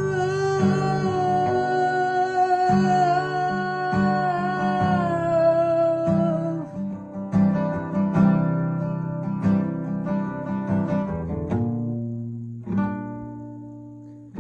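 Acoustic guitar playing slow chords, with a long held sung note over it for roughly the first six seconds; then the guitar carries on alone and rings down quietly near the end.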